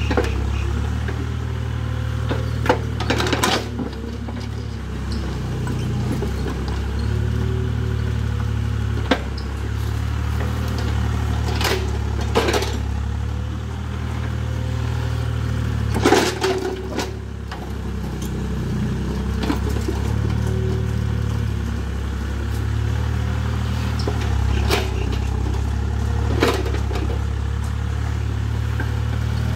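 Hitachi EX30 mini excavator's engine running steadily, its note rising and falling with the load as it digs. Several sharp metallic clanks from the bucket and arm working through dirt and rocks, the loudest about 16 seconds in.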